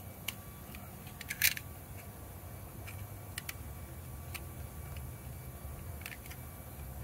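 Scattered sharp clicks and crunches of a large metal blade cutting into a cactus stem, the loudest a quick cluster about a second and a half in.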